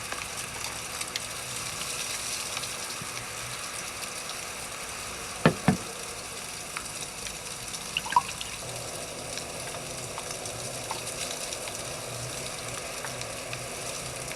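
Steady rushing hiss of blizzard wind and blowing snow, with two sharp knocks about five and a half seconds in and a lighter click a couple of seconds later.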